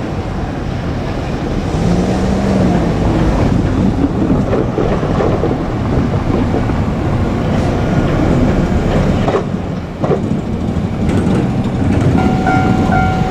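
A JR Kyushu 817 series electric multiple unit passing close by, a loud steady rush of wheels on rail with a few clacks over rail joints. Near the end a level-crossing alarm's repeating electronic tones come through.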